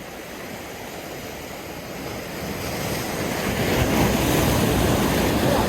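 Rushing wind and water noise at the shore, with wind on the microphone, building from about two seconds in and loudest near the end.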